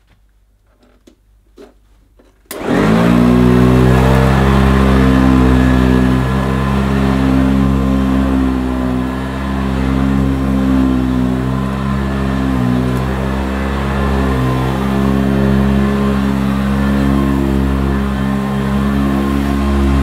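Electrolux Widetrack Professional upright vacuum cleaner (built by Eureka) switched on about two and a half seconds in, its motor whining up to speed within half a second. It then runs steadily while pushed back and forth over carpet, its pitch wavering slightly.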